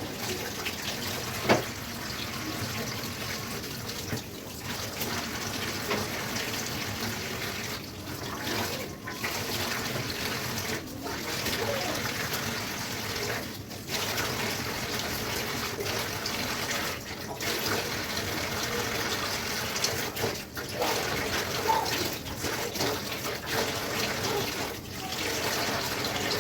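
Kitchen tap running into a sink as a steady rush of water that breaks off briefly several times. There is one sharp knock about a second and a half in.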